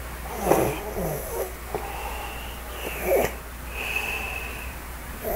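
A drunk person snoring: loud rough snores about half a second and about three seconds in, with a thin high whistling tone between them.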